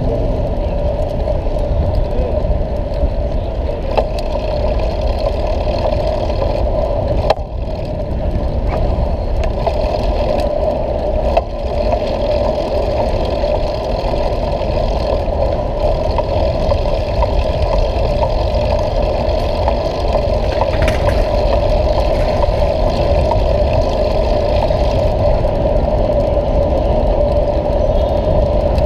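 Steady wind and riding noise on a bicycle-mounted camera's microphone as the bike rolls along city streets. Two sharp knocks come about seven and eleven seconds in.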